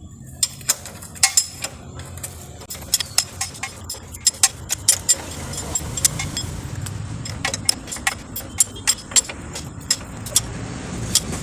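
Wrench tightening a motorcycle's rear axle nut: a run of sharp, irregular metallic clicks and clinks, several a second, over a low steady hum.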